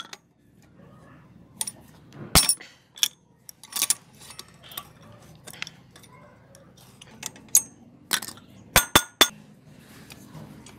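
Metal clinking as an adjustable wrench works the rusty nuts on an old steel bicycle frame and tools and parts knock against it: separate sharp clinks, a loud one about two and a half seconds in and a quick run of three near the end.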